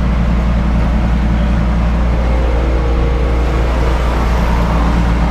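An engine running steadily at an even speed, a constant low drone.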